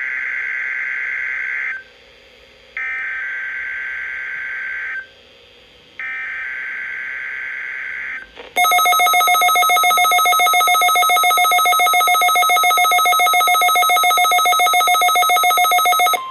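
NOAA Weather Radio weekly test signal: three short digital SAME header bursts, each a harsh buzzing chirp of about two seconds with short gaps between them. These are followed by a loud, fast-pulsing warning alarm tone that lasts about eight seconds.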